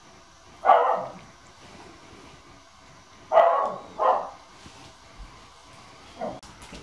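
A dog barking four times: single short barks about a second in and again near the middle, a quick second bark right after that, and a fainter one near the end.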